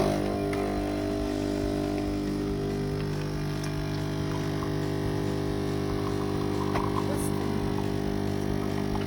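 Sage Nespresso coffee machine running its cafe latte cycle: a steady electric pump hum and buzz.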